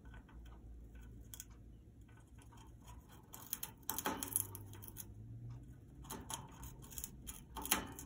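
Congo African grey parrot chewing a wooden perch with her beak: irregular crunching and cracking clicks as the wood splinters, in denser, louder clusters around the middle and near the end.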